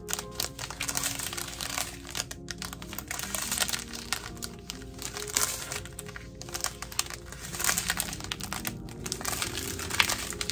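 Clear plastic bags of diamond painting drills crinkling and rustling as they are handled and turned over, with background music of held notes.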